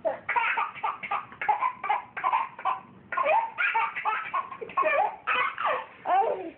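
A baby laughing hard, in quick runs of short high laughs about three a second, with brief pauses for breath between the runs.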